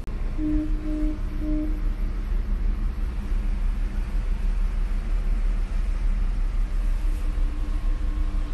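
Steady low rumble, with three short low tones about half a second apart near the start and a faint steady hum coming in near the end.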